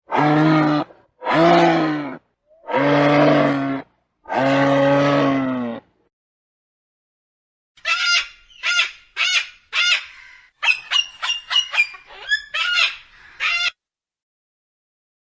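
Animal calls: four long, drawn-out pitched calls, then after a pause a quick series of about a dozen short, sharp calls.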